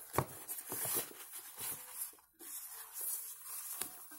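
A plastic packing bag rustling and crinkling as it is handled and lifted out of a cardboard box, with a sharp knock near the start.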